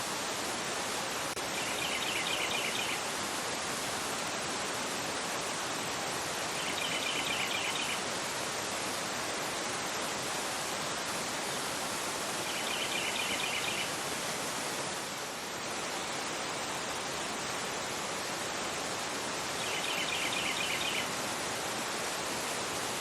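Fast-flowing river rushing over a rocky bed in a steady, full rush. A bird sings a short, rapid trill four times, every five to seven seconds.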